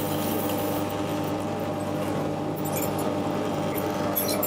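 Steady low hum of kitchen machinery, with a few faint light clicks near the end.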